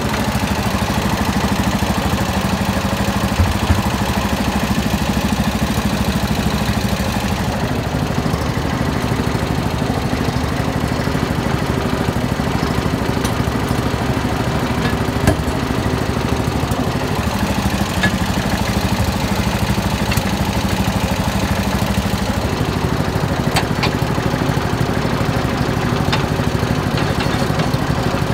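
A small engine idling steadily, with a few sharp metal clicks as the snowblower attachment is handled.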